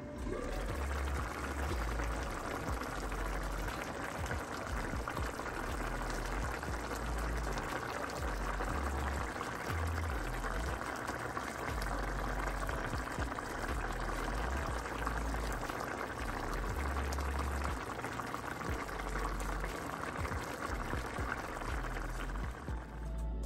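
Chicken stew simmering in an open pan, a steady dense bubbling and crackling, with a low rumble that comes and goes underneath.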